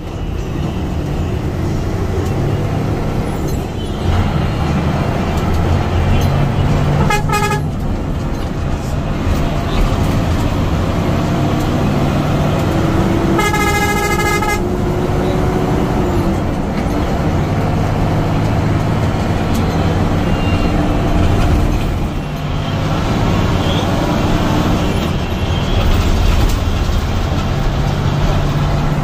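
Hino AK8 bus's diesel engine running steadily under load, heard from inside the driver's cab while overtaking. A short horn blast comes about seven seconds in, and a longer horn blast of about a second comes near the middle.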